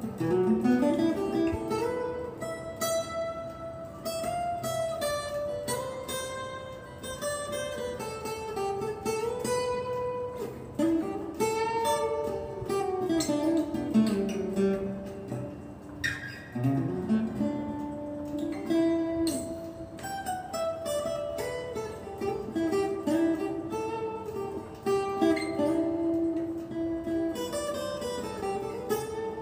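Acoustic guitar played solo: a continuous melody of plucked notes and chords.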